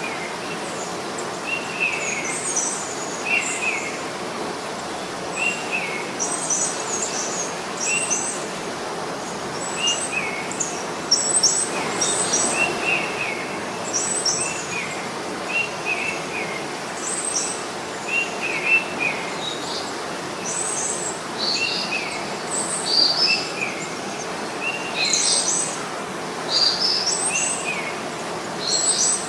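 Several birds chirping in trees: one repeats a short, slightly falling call about once a second, while others add higher, quicker chirps at irregular times over a steady background hiss.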